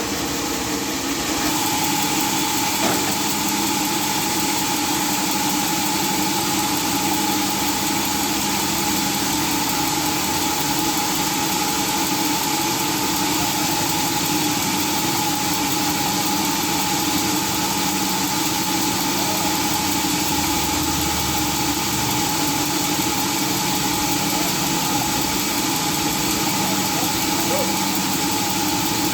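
Sawmill machinery running steadily, an unchanging mechanical hum with no change in pitch or load.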